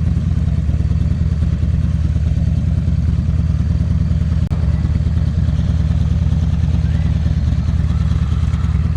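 2009 Buell XB12Ss's air-cooled V-twin, breathing through an aftermarket Jardine exhaust, running steadily at an unchanging engine speed.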